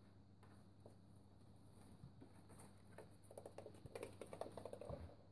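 Faint pattering and scratching of kittens' paws on the litter box, newspaper and floor, becoming a quicker run of small scratchy clicks from about three seconds in, over a low steady hum.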